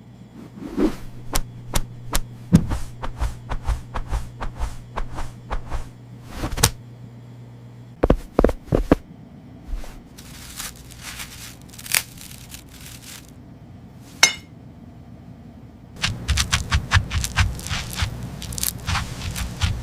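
Kitchen food-preparation sounds: a long series of sharp knocks, clicks and scrapes of utensils on a work surface, several a second at first over a steady low hum, sparser in the middle, and a dense run of heavier knocks near the end.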